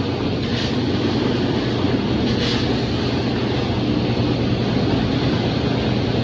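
Farm machinery's diesel engine running steadily at a constant pitch, with no change in speed.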